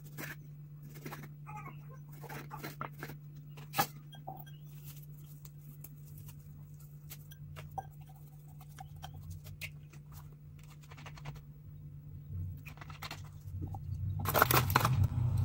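Scattered taps and clicks of drink preparation: a knife cutting a lemon on a wooden chopping board, then a plastic spoon pressing leaves in a drinking glass, with one sharper knock about four seconds in. Near the end comes a louder burst of handling noise as the glass is moved, over a low steady hum.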